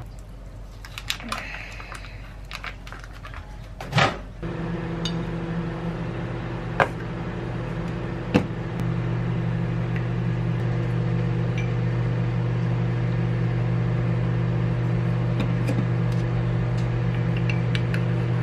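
Microwave oven running with a steady electrical hum as it heats a bowl of instant germinated brown rice. It starts after a knock about four seconds in and gets louder a few seconds later. Before that, plastic film crinkles as it is peeled off the rice bowl.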